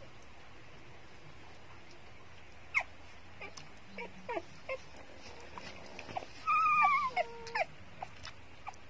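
Newborn puppies squeaking and whimpering while nursing: several short falling squeaks, then one longer, louder wavering cry about two-thirds of the way through.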